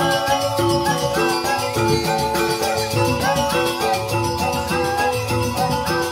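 Balinese joged bumbung gamelan: bamboo xylophones playing a busy, repeating melody over a steady drum beat.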